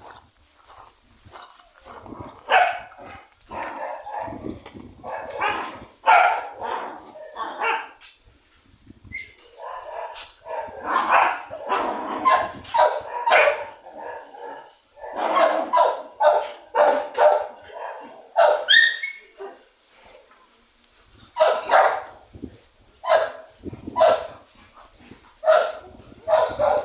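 Dogs barking repeatedly in short clusters of barks, some loud and close, with brief pauses between the bouts.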